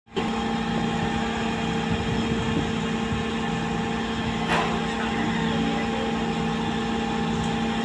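Diesel engine of a truck-mounted concrete boom pump running steadily at a constant speed, with a single short knock about halfway through.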